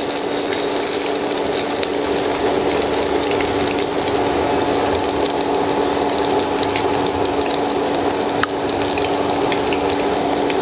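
Potato, minced pork and egg patties shallow-frying in hot oil, sizzling and crackling steadily, over a faint steady hum.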